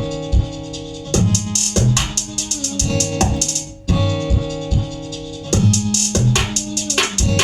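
Trapiano beat playing: programmed drums and busy hi-hats under held keyboard and piano chords and a bass line. The beat briefly drops out a little before the four-second mark and comes back in.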